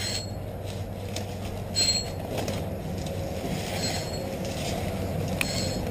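Fishing reel whirring steadily under load while playing a hooked carp on a bent rod, with brief high squeaks about every two seconds.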